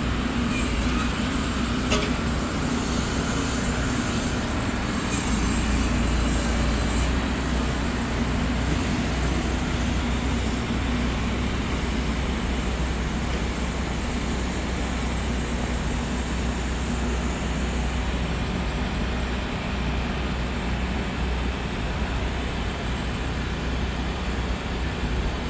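1973 St. Louis-built R44 electric train of the Staten Island Railway pulling out and running away along the track: a steady rumble of wheels and motors, with a higher hiss that dies down after about seven seconds and a sharp click about two seconds in.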